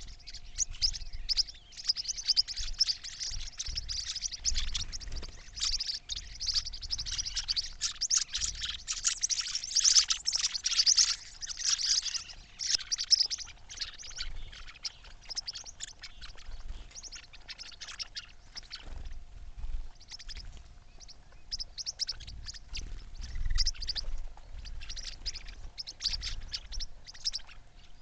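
Many small birds chirping and twittering at once, a dense high-pitched chatter that is busiest in the first half.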